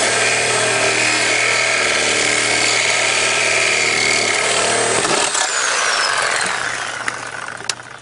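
Electric power tool running at full speed as it cuts into a refrigerator's metal casing. It is let off about five seconds in, and its motor winds down with a falling whine until it stops near the end.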